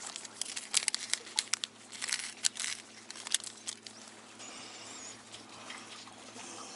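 Plastic tackle packet of fishing hooks crinkling and crackling in the hands: a dense run of sharp crackles over the first four seconds or so, then quieter handling.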